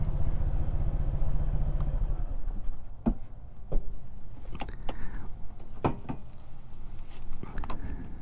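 Motorcycle engine idling, picked up by a helmet-mounted microphone, then cutting off about two seconds in. Several sharp clicks and knocks follow at irregular intervals.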